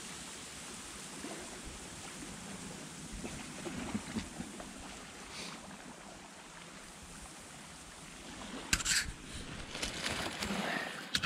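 Steady outdoor wind hiss with soft rustling in dry reeds, and a few sharp clicks about nine seconds in.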